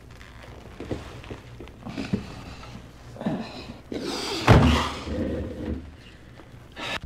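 Playback of a 45 rpm record of a live arm-wrestling match: voices straining and shouting, with one heavy thud about four and a half seconds in that is the loudest sound, over a steady low hum. The recording cuts off abruptly at the end.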